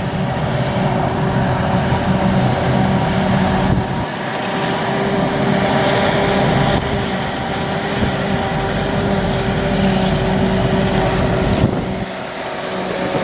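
Claas Jaguar self-propelled forage harvester running steadily under load while chopping corn for silage, a loud, even engine drone with a steady hum, with wind noise on the microphone.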